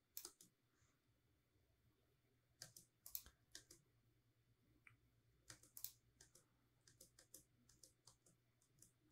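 Near silence: quiet room tone with a few faint, scattered clicks of a computer mouse.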